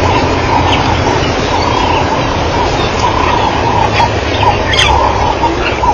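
A pack of African wild dogs twittering: many short, bird-like chirping calls in quick succession, with a steady low rumble underneath.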